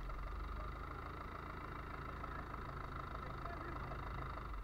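Fishing boat's engine running steadily at idle: a constant low hum with a steady higher whine, over wind and water noise.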